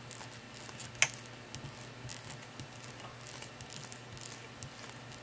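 Faint metallic clicks and scraping of a thread-cutting die being turned by hand onto a small brass rod, with one sharper click about a second in, over a steady low hum.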